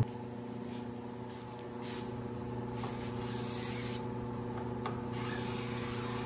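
Cabinet scraper with a freshly sharpened burr being drawn along the edge of a hardwood strip, making hissing scraping strokes: a faint one early, then a long one about three seconds in and another shorter one about five seconds in. A steady low hum runs underneath.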